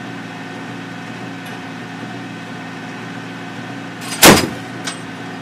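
Steady hum of the LAV-25's idling engine, broken about four seconds in by a single loud shot from its 25 mm chain gun, with a fainter sharp crack about half a second after.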